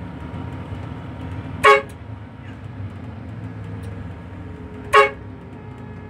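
Two short, loud horn toots about three seconds apart, over the steady low rumble of a moving bus's engine and road noise in the cab.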